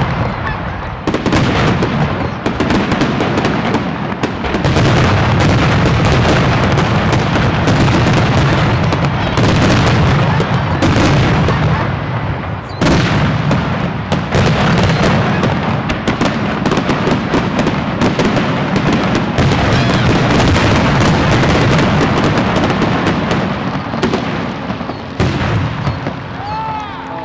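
Fireworks display: a dense, nearly continuous run of booming shell bursts and crackle.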